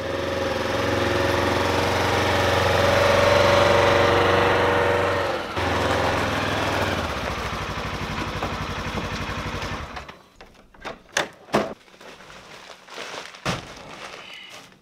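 Vehicle engine running steadily, dropping lower partway through, then stopping about ten seconds in. A few sharp knocks and thuds follow.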